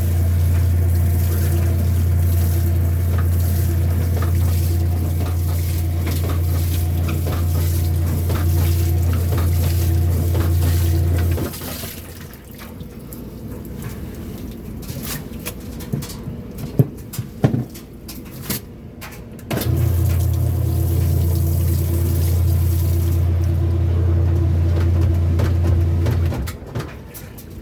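Kenmore washing machine motor running with a loud, steady low hum in two stretches, about eleven and seven seconds long, separated by a quieter spell of water and light clatter. The owner likens this noise to the washer wringing out the load.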